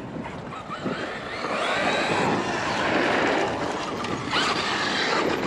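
Traxxas X-Maxx brushless RC monster truck running hard, its motor whining as it speeds up and its tyres rushing over the ground. The sound swells about a second and a half in, is loudest around two to three seconds, and rises again briefly near the end.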